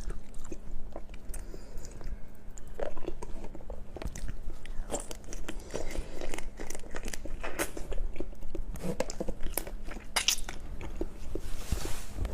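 Close-miked eating sounds of raw marinated shrimp: irregular crunches, wet clicks and chewing as the shrimp are bitten and chewed.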